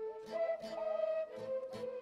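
Cavals, long Romanian end-blown folk flutes, playing a folk melody together with violins, the tune ornamented with quick upward slides. A drum keeps a steady beat of about two strokes a second.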